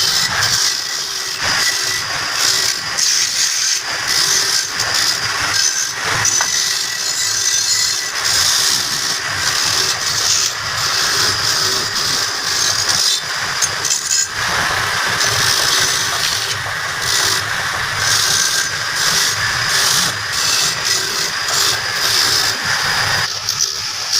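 A power tool running steadily under load with a harsh, high hiss, shifting in tone about two thirds of the way through.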